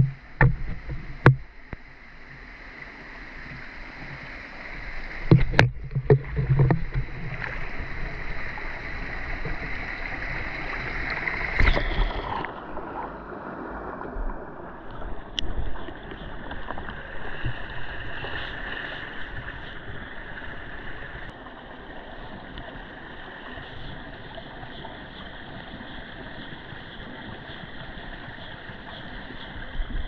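A few sharp knocks as the camera is handled among stream stones. About 12 seconds in, the sound turns muffled as the camera goes under the water, leaving the steady rush of a shallow mountain stream heard from below the surface.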